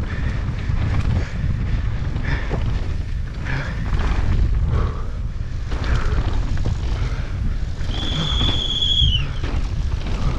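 Wind buffeting an action camera's microphone on a downhill mountain bike at speed, with the bike rumbling and rattling over rough trail. Near the end a high, steady squeal lasts about a second.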